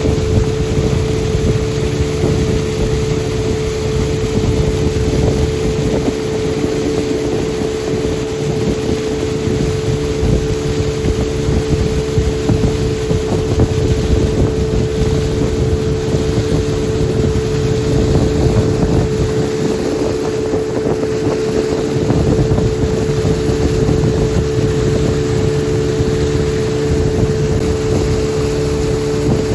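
Speedboat running at speed across open water: its engine holds a steady pitched drone over the loud rush and hiss of spray and water churning along the hull.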